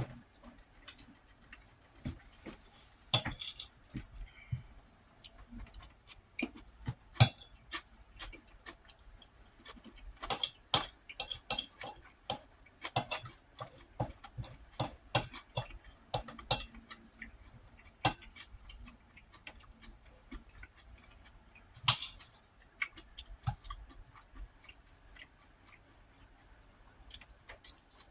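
Eating sounds: irregular clicks and clinks of a utensil against a dish, scattered through with no steady rhythm, mixed with close mouth sounds of chewing.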